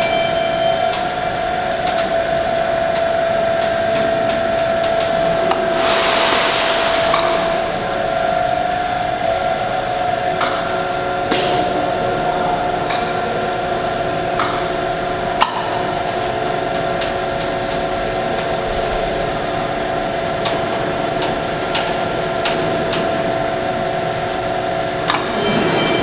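G5 automatic pallet wrapper's top-sheet dispenser running: a steady motor whine with scattered clicks and knocks, a burst of hissing lasting over a second about six seconds in, and a sharp click a little past the middle.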